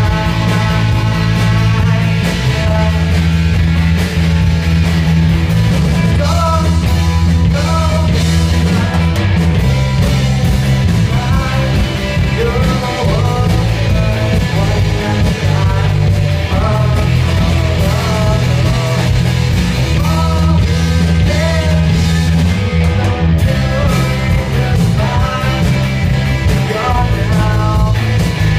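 Live rock band playing loudly: electric guitar, bass guitar and drum kit, with a heavy, steady bass.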